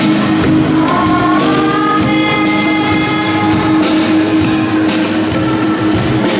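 Live band music from Yamaha electronic keyboards and electric guitars, with percussion and a choir singing along.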